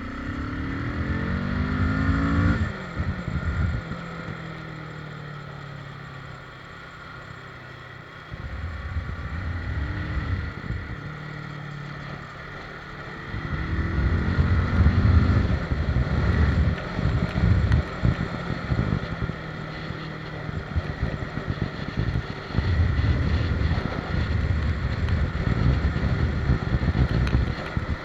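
Motorcycle engine accelerating, its pitch rising over the first couple of seconds and then falling at a gear change, then repeatedly getting louder and easing off. Wind noise rushes over the microphone throughout.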